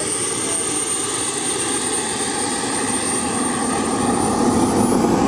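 Turbine of a large radio-controlled model jet running with a steady high whine, rising in pitch and getting louder about four seconds in as it spools up.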